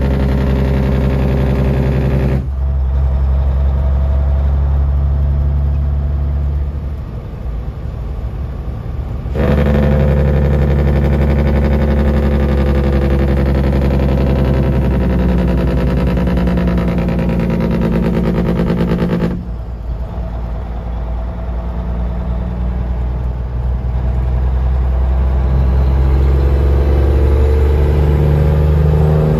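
Semi truck's diesel engine heard from inside the cab, with the engine brake (Jake brake) on in long stretches: loud and rough for the first two seconds and again from about 9 to 19 seconds, quieter in between and after, building again near the end.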